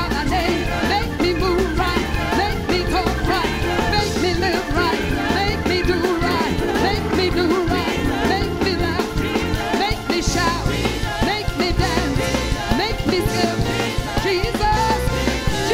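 Live gospel praise-break music from a church band, with the praise team's voices singing over it.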